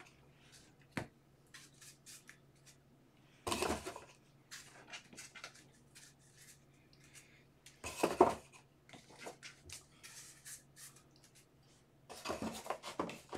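Light clicks and rustles of objects being handled, with three louder rustling bursts around four, eight and twelve seconds in.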